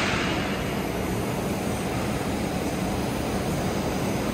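Steady hiss of a TIG welding arc laying the capping pass on a 2-inch stainless steel pipe joint, with a low steady hum underneath.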